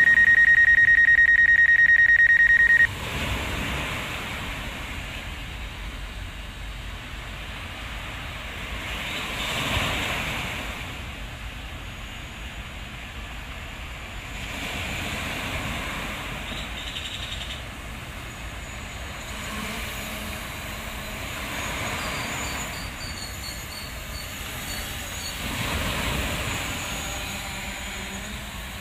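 A loud electronic alarm tone, one high pitch beeping in a fast flutter, cuts off about three seconds in. After it comes a rushing outdoor noise that swells and fades every five or six seconds.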